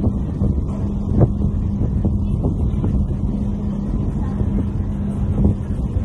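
A boat's engine running with a steady hum while the boat moves through the water, with wind buffeting the microphone.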